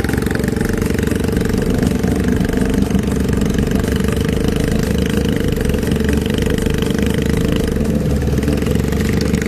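125 cc SYM Attila scooter engine mounted in a homemade boat, running steadily at an even speed.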